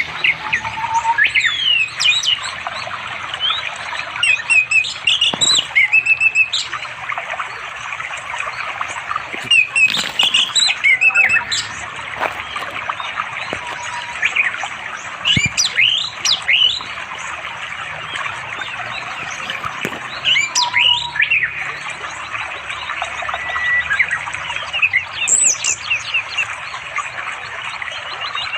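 Orange-headed thrush singing: short bursts of quick, varied whistled phrases with rising and falling notes every few seconds, a male calling for a mate. Underneath is the steady rush of a flowing stream.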